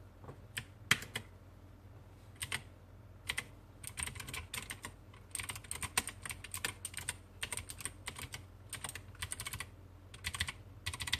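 Keys of an E-blue Mazer K727 mechanical keyboard being pressed: a few single clicks at first, then quick irregular runs of keystrokes like typing.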